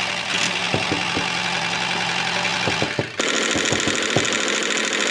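An engine running steadily, with scattered clicks over it; the sound changes abruptly about three seconds in.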